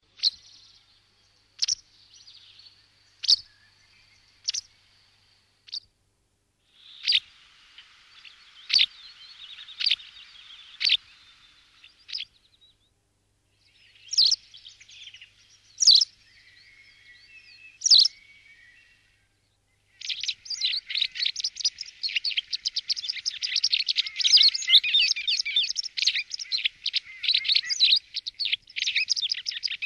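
White wagtail (Motacilla alba) calling, with single sharp high calls about every second and a half. From about twenty seconds in, this gives way to a fast, continuous twittering song.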